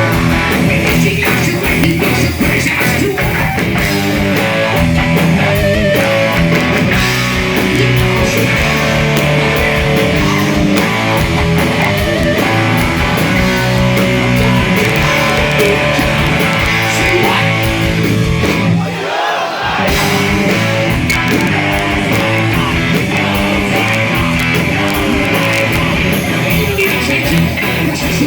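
Hard rock played by a band: loud guitars over drums, with a brief break about two-thirds of the way through before the band comes back in.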